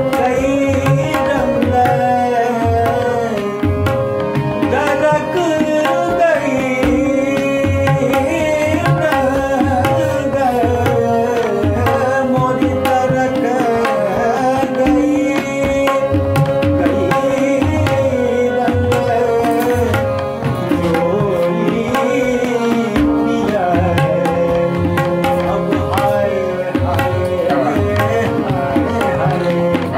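Male voice singing a classical Kumauni Holi in raag Jangla Kafi to harmonium accompaniment, with a hand drum keeping a steady rhythm.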